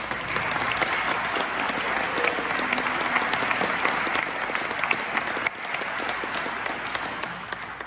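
Audience applauding, a steady round of many hands clapping that fades away near the end.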